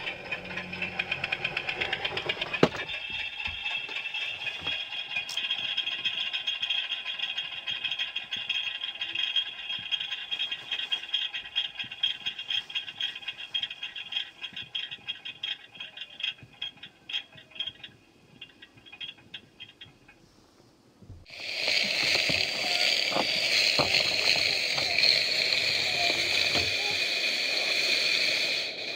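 A small garden-railway locomotive running with a fast mechanical rattle that fades out about two-thirds of the way in. After a short lull, a live-steam locomotive starts hissing loudly and steadily as it vents steam.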